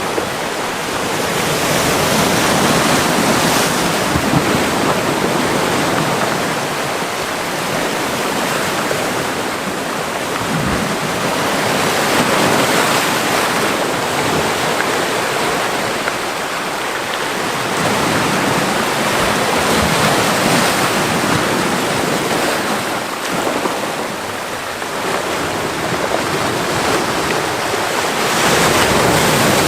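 Small Mediterranean waves breaking and washing in a rocky cove, a steady surf that swells and eases every few seconds.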